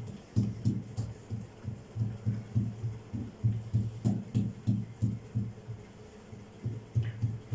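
Muffled low thumps, about three a second, as palms press and pat a round of dough flat on a silicone mat on the counter.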